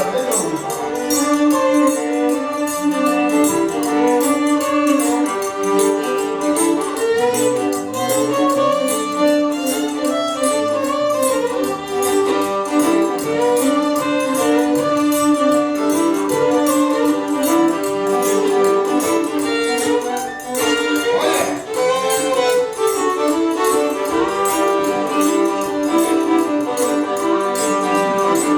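Live Cajun string-band music: a fiddle carries a lively melody over held accompanying notes, with a quick upward slide about 21 seconds in.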